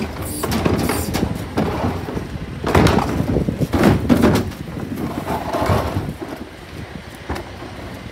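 Rear-loader garbage truck collecting plastic wheelie bins: a series of knocks and clatters of bins and lids at the bin lifter, the loudest about three and four seconds in, over the truck's engine running.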